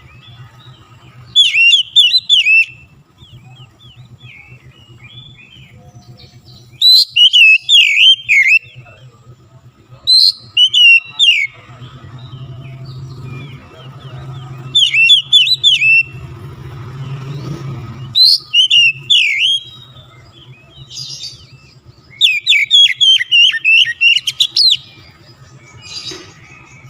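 Oriental magpie-robin singing in loud bursts of rapid, high twittering and whistled phrases, about seven bursts a few seconds apart, over a low steady hum.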